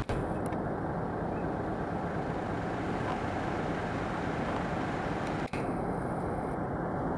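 Steady outdoor background rumble picked up by a compact camera's built-in microphone, with no distinct event in it. It cuts out for a split second twice, at the start and about five and a half seconds in.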